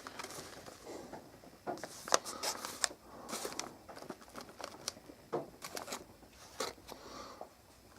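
Packaging of refrigerator replacement filters being handled, with scattered crinkling rustles and light clicks and knocks.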